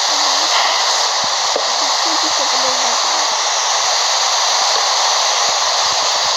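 A steady, loud rushing hiss that does not change, with faint voices in the first few seconds.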